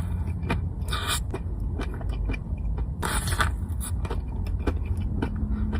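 Someone eating a large cream-filled dessert: wet mouth clicks and chewing, with two louder rustling, scraping bursts about one and three seconds in, over a steady low rumble.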